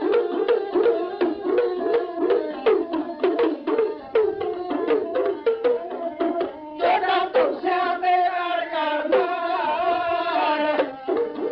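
Punjabi dhadi music: rapid hand-drum strokes under a wavering melody, then a long, held sung line from about the middle to near the end, after which the fast drumming resumes.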